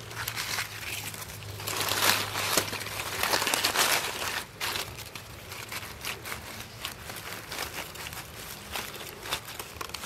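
Dry leaves and nest straw rustling and crackling as a gloved hand moves through the leaf litter beside the nest, busiest in the first few seconds, then scattered lighter crackles.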